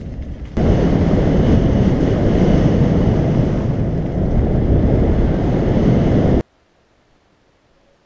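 Heavy wind buffeting on an action camera's microphone during a fast mountain-bike descent, with the rumble of the bike over the track mixed in. It jumps louder about half a second in and cuts off abruptly about six and a half seconds in, leaving near silence.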